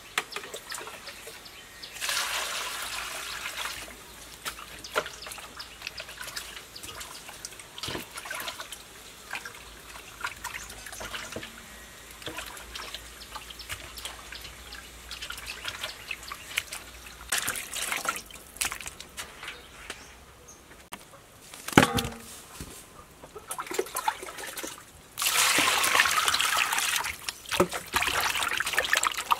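Hands washing chunks of raw pork in water in a metal bowl: sloshing, trickling and splashing, with small clinks against the bowl. There are louder stretches of splashing water early on and in the last few seconds, and one sharp knock about two-thirds of the way through.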